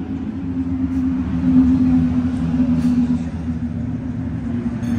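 Ferrari Formula 1 car engine idling steadily, a high, even drone that swells slightly about a second and a half in.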